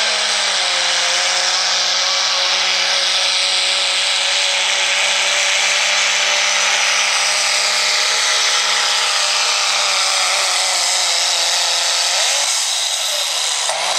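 Second-generation Dodge Ram's Cummins straight-six diesel pulling a weight-transfer sled at full throttle. It holds steady high revs, with a loud hiss of turbo and exhaust over the engine note. About twelve seconds in, the revs briefly rise and then fall away as the throttle is let off at the end of the pull.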